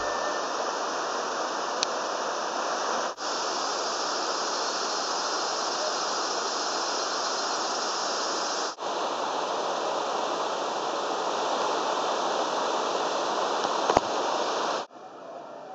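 Steady, even rushing noise like flowing water, broken off for an instant twice and dropping away near the end.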